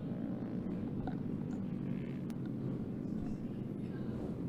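Off-road race kart engines running at a distance, a steady low drone without big revs, as the field circulates at caution pace.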